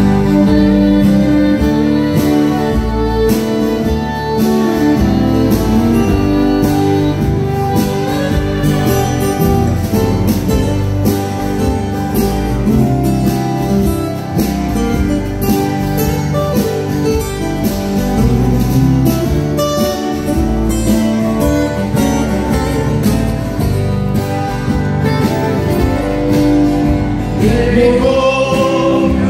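Live country band of several acoustic guitars and a fiddle playing a song, with voices singing into microphones near the end.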